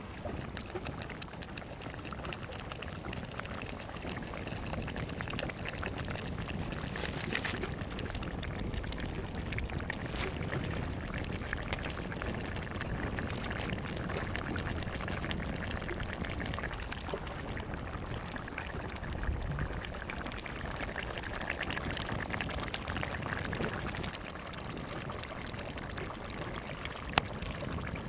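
Steady rush of moving water, with one short click near the end.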